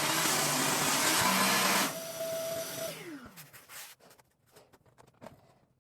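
Skil table saw running loud through the oak cut. About two seconds in, the rushing noise cuts off, leaving the motor's steady whine, which then falls in pitch as the blade spins down after switch-off. Faint light knocks follow.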